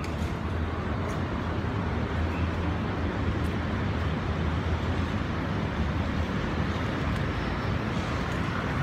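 Steady outdoor city background noise: a constant low rumble with a hiss over it, like distant road traffic.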